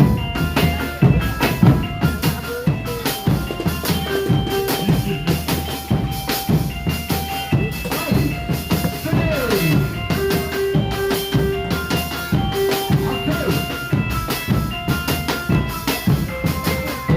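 Background music with a busy drum-kit beat, bass drum and snare under held melodic notes, with one falling pitch slide about nine seconds in.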